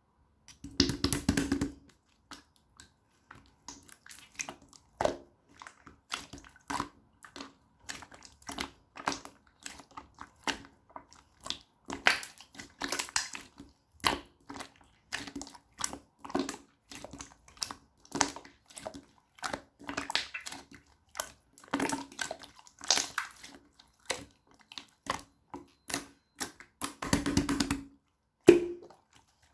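Slime being pressed, poked and squeezed by hand: a steady run of short crackling pops and squishes, one or two a second, with longer crackly squeezes near the start and near the end.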